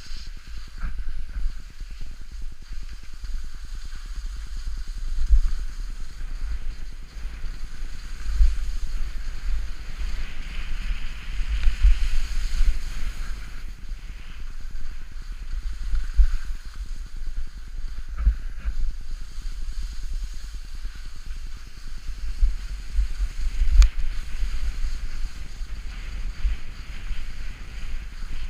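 Wind buffeting the microphone of a body-worn camera on a skier moving downhill, a low rumble that swells in irregular gusts, over a steady hiss of skis sliding on snow.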